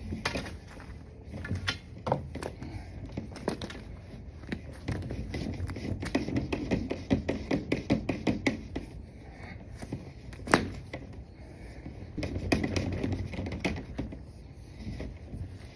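Irregular scraping, tapping and clicking as a clogged dryer vent duct is worked on to clear packed lint.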